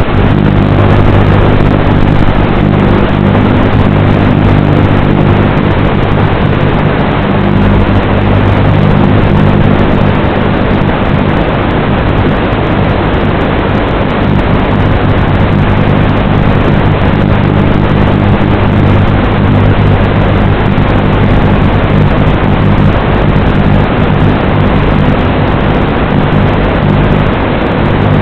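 Loud, steady hum of the small electric motors of a remote-controlled FPV craft, with a dense hiss laid over it.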